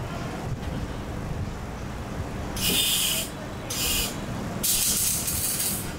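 Electric arc welding: the arc hisses in three short bursts as it is struck and broken, the first starting about two and a half seconds in and the last running about a second, over a steady low rumble.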